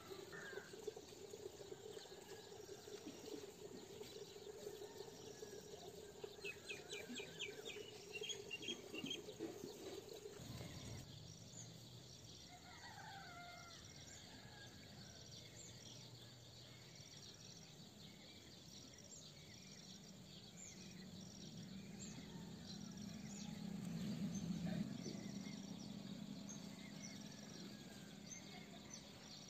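Faint outdoor ambience of birds chirping and calling, with short high chirps repeating throughout. A steady low hum stops about a third of the way in, and a low rumble swells and fades in the second half.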